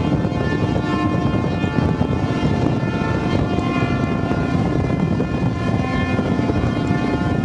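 Fishing trawlers' horns sounding together in protest, several steady tones at different pitches overlapping, some cutting out and coming back in, over a steady rush of wind, sea and engine noise.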